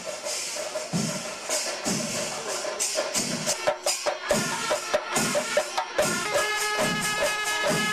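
Kerala temple-festival percussion: fast, dense drumming with cymbals. About halfway through, held wind-instrument notes join it.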